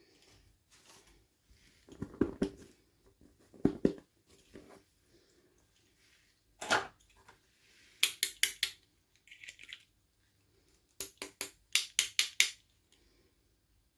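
Hands handling small plastic toy parts and packaging during an unboxing: clusters of sharp clicks, taps and crinkles, the busiest runs about a third of the way in and again near the end.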